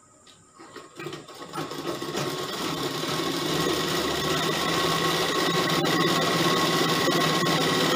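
Sewing machine starting about a second in, speeding up over roughly two seconds and then running steadily at a fast stitch while joining the gown's kali panels together.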